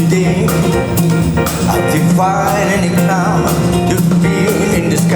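Big band music with a steady beat and a melody line that bends in pitch.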